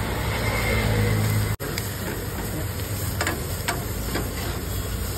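Steel pan sizzling as boiled penne is tipped into hot oil and sautéed vegetables and stirred, with a few sharp clicks of the metal ladle against the pan. A steady low hum runs underneath.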